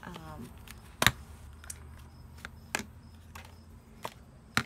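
Sharp clicks and knocks of plastic breast pump parts being handled and fitted together, the loudest about a second in and others near three and four and a half seconds.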